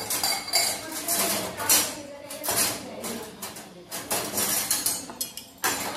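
Metal spoon scraping and clinking against a steel bowl of besan batter as small pakoris are dropped into hot oil, in a string of short, irregular scrapes.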